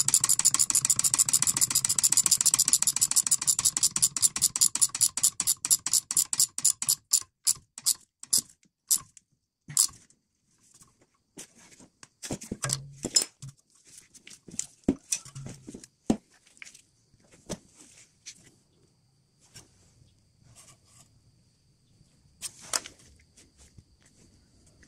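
A 19 mm ratchet wrench clicking rapidly as it tightens the nut on a Mercedes E-Class outer tie rod end, the clicks slowing and spreading out into separate clicks over the first nine seconds or so. Scattered metallic clicks and knocks follow, with one sharp click near the end.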